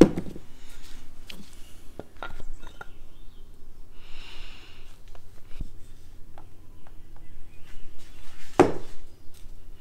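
Scattered clicks and taps of small parts and tools being handled and set down on a workbench, with a short hiss about four seconds in and one louder knock near the end.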